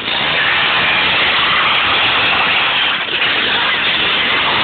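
Small moped engine running loudly and steadily.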